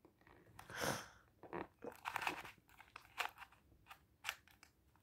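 Plastic 3x3 puzzle cube being turned by hand: a faint run of quick, irregular clicks and crunches as its layers rotate.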